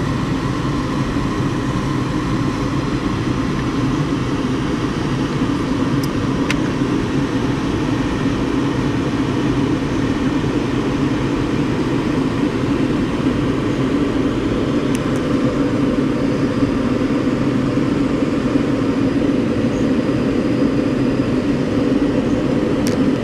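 Steady rush of air over the canopy, heard from inside the cockpit of a Schempp-Hirth Janus B two-seat glider in gliding flight, with no engine running.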